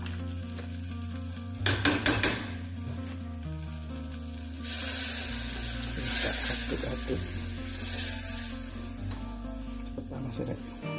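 Margarine sizzling in a stainless-steel saucepan as flour is added and stirred in with a silicone spatula to make a roux. A few sharp knocks come about two seconds in, and the sizzling grows loud from about five seconds before easing off.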